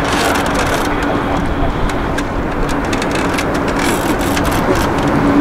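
Airbus A350-900's Rolls-Royce Trent XWB turbofan engines running at low taxi thrust as the airliner turns on the runway: a steady rushing noise with a steady hum through it.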